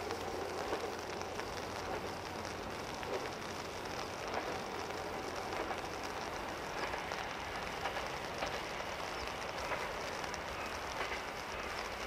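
KiHa 183 series diesel express train approaching from a distance, its engines a faint low hum under a steady hiss of rain.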